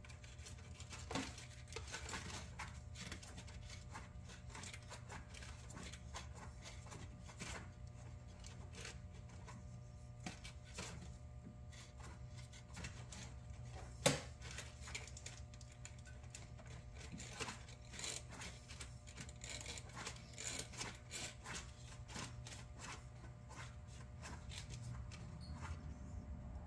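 Faint scattered ticks and rubbing as a gloved hand turns a spin-on oil filter loose on a Linhai UTV engine, with one sharper knock about halfway through. A steady low hum runs underneath.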